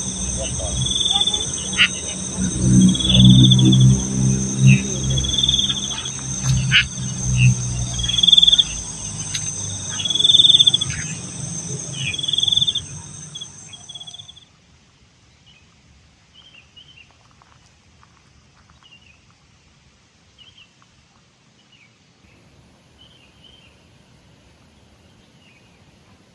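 Night insects, crickets among them, shrilling steadily, with a higher chirp repeating a little more than once a second and a low hum underneath. About halfway through all of this cuts off at once, leaving only faint, scattered chirps.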